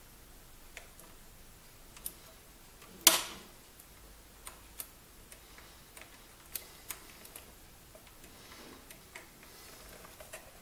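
Scattered light clicks and taps of hands handling a Timex Sinclair 1000 computer's plastic case and its plugged-in cables, with one louder knock about three seconds in.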